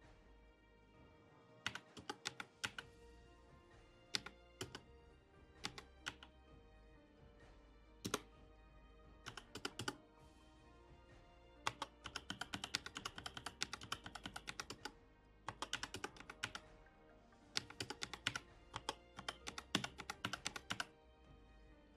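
Computer keyboard typing in short bursts of quick keystrokes with pauses between, as IP address values are keyed in, over soft background music.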